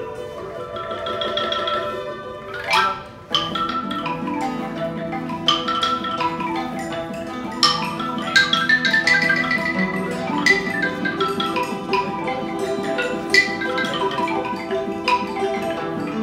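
Traditional Vietnamese instrumental music: a bamboo t'rưng xylophone struck with mallets, with a plucked table zither playing a melody, with notes ringing out one after another. The music dips briefly about three seconds in.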